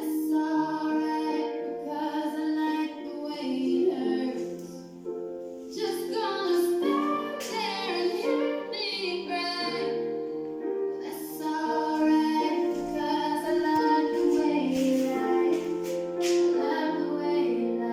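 Background music: a song with a high female or child-like singing voice over a soft accompaniment with a bass line.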